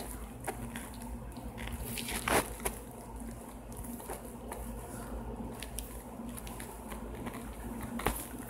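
Faint room noise with a steady low hum and scattered small clicks and rustles; the sharpest click is about two seconds in.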